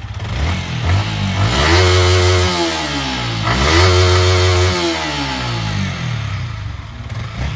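Single-cylinder motorcycle engine on its stock exhaust, revved twice from idle: the pitch climbs, holds briefly and falls back each time, settling to idle near the end.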